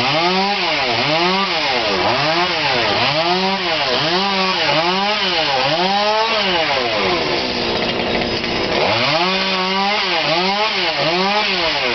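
Chainsaw running loud, its engine speed rising and falling over and over, a little more than once a second, as it cuts into a tree. It drops back briefly about two-thirds of the way through, then picks up the same rising-and-falling pattern again.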